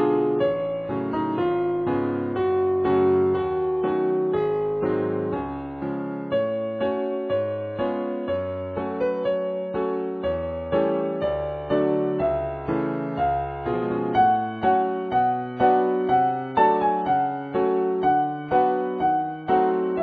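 Background piano music: chords and a melody over bass notes. In the second half the notes fall into an even, repeated pulse.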